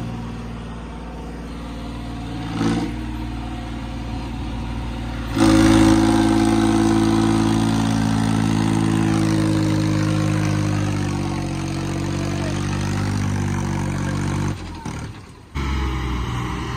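Diesel tractor engine running steadily, then revved hard about five seconds in and held at high revs, the pitch sagging slowly. Near the end it cuts off abruptly, and another tractor engine comes in running steadily.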